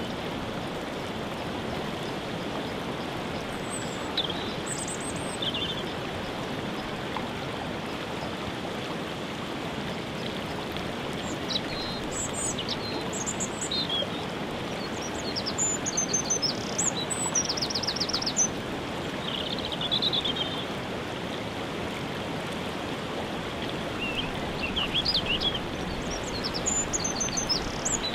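Waterfall rushing steadily, with small birds chirping and trilling at intervals over it, several calls about halfway through and again near the end.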